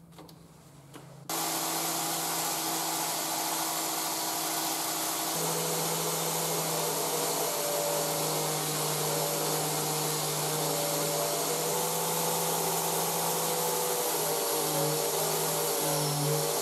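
Angle grinder, mounted in a homemade bench stand, running at speed with its disc sticking out beyond the standard guard: a steady hum and hiss that cuts in suddenly about a second in. Near the end its tone wavers a little.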